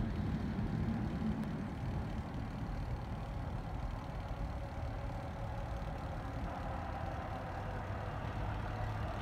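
An 81 class diesel locomotive's engine running steadily as a container train approaches, a low even engine sound. A faint steady hum comes in about two-thirds of the way through.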